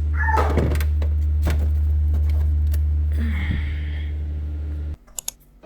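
A steady low hum with a few clicks and knocks over it, cutting off abruptly about five seconds in.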